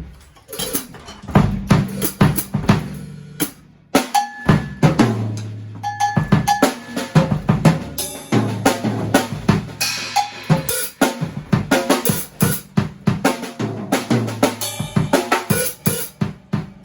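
Music: a drum-kit track with a driving beat and a steady bass line.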